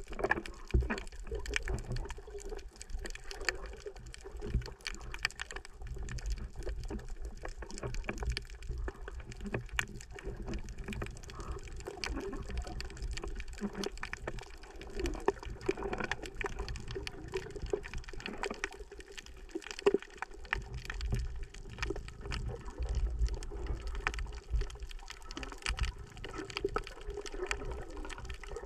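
Underwater ambience picked up by a submerged camera: a muffled, steady low rumble of moving water with a constant scatter of small clicks and crackles.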